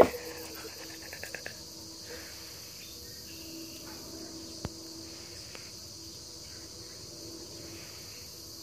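Crickets chirring steadily in the background, with a short loud sound right at the start and a few faint ticks.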